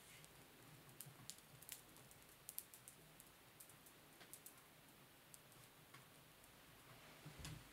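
Faint clicks and taps of British Shorthair kittens' claws and paws on a wooden tabletop as they scamper and tussle, most frequent in the first few seconds, with a soft thump near the end.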